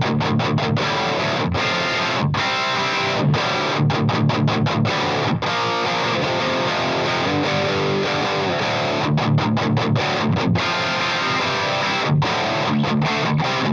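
Heavily distorted electric guitar riffing through a Marshall Vintage Modern 2466 100-watt valve head at maximum gain without a boost, tuned to D standard. The tone is chunky, with many short stops between chords.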